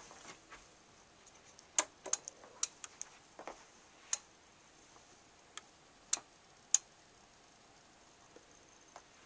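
About a dozen sharp, irregular clicks and light taps over faint hiss, bunched together in the middle of the stretch, the sort made by handling close to the mic.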